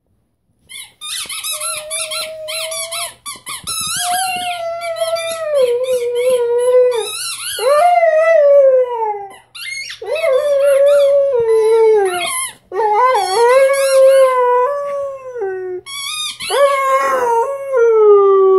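Rhodesian Ridgeback puppy howling in about six long drawn-out notes, each two to three seconds and most falling in pitch at the end, with high squeaks mixed in over the first few seconds.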